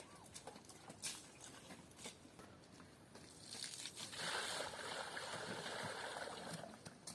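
A few light knocks, then water pouring for about three seconds from a little past the middle.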